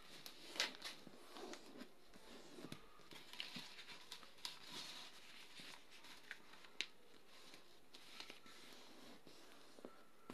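Sheet of lined notebook paper being folded and pressed flat by hand: faint rustling with scattered sharp crackles and taps as the crease is made.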